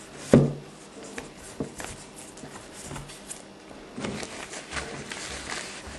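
Handling noise from a camcorder and its packaging: a sharp knock about a third of a second in, then scattered light clicks and rustling, busiest from about four seconds in.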